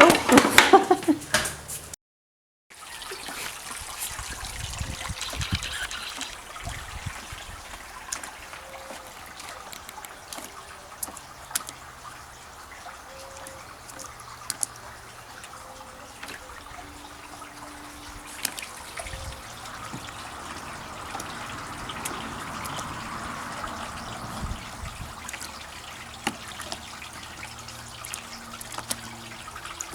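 A dog barks at the very start, then after a cut comes steady trickling water with scattered small splashes and clicks, as a young Labrador puppy paws and digs in the water.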